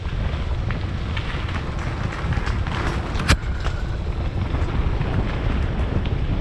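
Wind buffeting the microphone of a camera moving along a gravel trail, a steady low rumble, with faint scattered ticks from the gravel and one sharp click about three seconds in.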